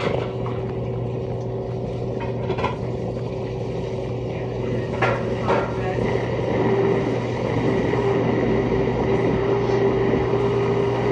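Bosch dishwasher running: a steady motor hum, with a higher steady tone that grows louder about six seconds in. A few short knocks come in the first half.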